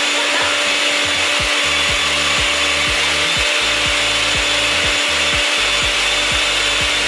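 Small personal bullet-style blender running steadily with a constant motor whine, puréeing a thick green herb and lemon dressing.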